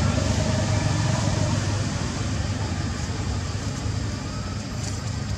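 Steady low rumbling background noise, with no distinct sound standing out.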